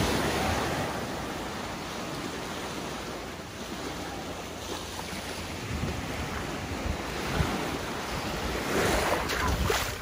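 Small surf waves breaking and washing up on a sandy shore, with wind buffeting the microphone.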